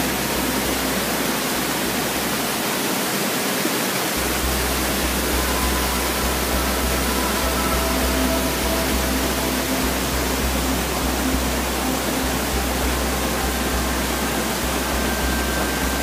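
Whitewater rushing and churning through the rapids of a fast stream: a loud, steady hiss with no breaks.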